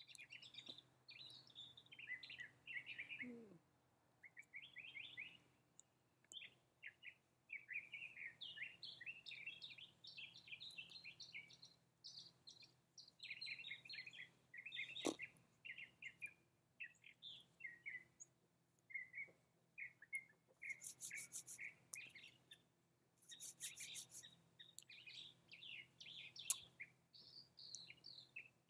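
Faint songbirds chirping and twittering in the trees, many short calls throughout, with a couple of rapid, high buzzy trills about two-thirds of the way in. Two sharp clicks stand out, one halfway through and a louder one near the end.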